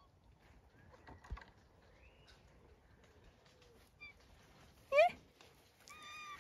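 Domestic cat meowing: one loud meow with a wavering pitch about five seconds in, then a shorter, higher call near the end. A faint knock a little after the first second.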